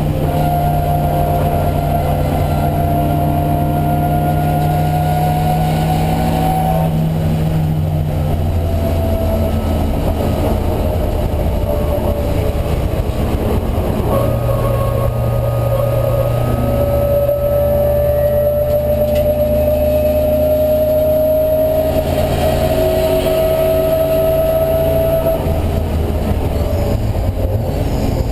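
Alfa Romeo Giulia 1600's twin-cam four-cylinder engine running hard, heard from on board the race car. The revs climb slowly and steadily under load, drop off about a quarter of the way in, then climb slowly again through most of the rest.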